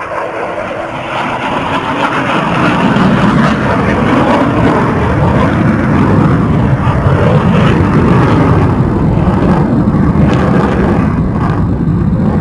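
Jet engine roar of a low-flying F-16 fighter jet, swelling over the first few seconds and then holding loud and steady.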